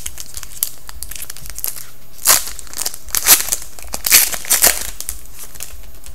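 Plastic wrapper of a hockey card pack torn open and crinkled by hand, in several short crackling bursts, the loudest a little over two seconds in and between three and five seconds in.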